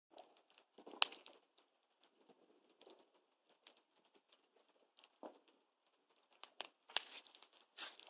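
Open fire crackling in a washing-machine-drum fire pit, with scattered sharp pops; the loudest comes about a second in, and a quick cluster of pops near the end.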